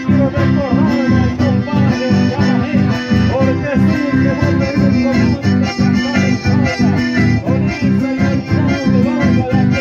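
Live chamamé played on two accordions with acoustic guitars. The accordions carry the melody over a steady, lilting guitar rhythm.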